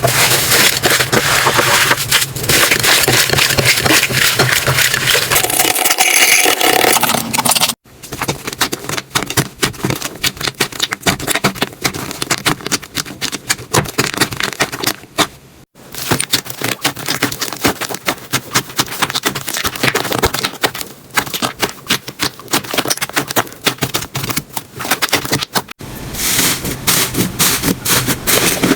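Slime being squeezed and pressed by hand, with a dense run of crackling clicks and pops that breaks off three times where one clip gives way to the next.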